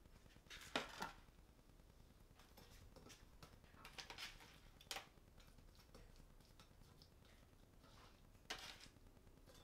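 Faint kitchen handling sounds over low room tone: a few short, light knocks and clinks as a metal tray and ingredients are moved around a cutting board and cast-iron skillet, the loudest pair about a second in and single ones near the middle and near the end.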